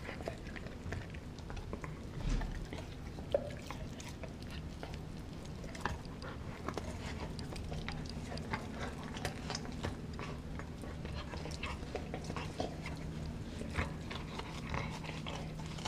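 A dog chewing a frozen raw pig's foot, with irregular sharp cracks and clicks of its teeth on the frozen meat and bone.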